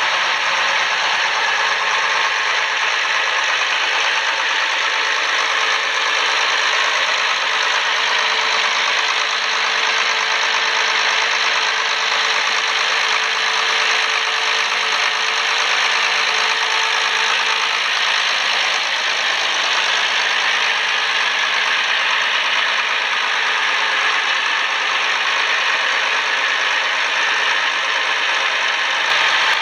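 Ursus 1224 tractor's diesel engine running steadily, freshly rebuilt and being run in after a major overhaul.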